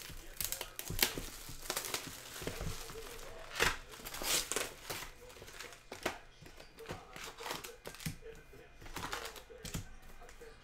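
Upper Deck hockey card foil packs crinkling and rustling as they are handled and pulled out of their cardboard box, with irregular sharp crackles.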